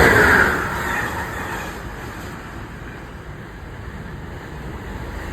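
Electric train running past on the tracks. It is loudest right at the start, then fades over about two seconds to a low, steady rumble.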